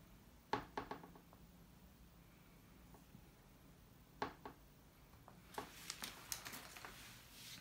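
Sharp clicks and taps from a can being handled and pressed on a canvas: a cluster about half a second in, another about four seconds in, then a quick run of clicks with a faint hiss near the end.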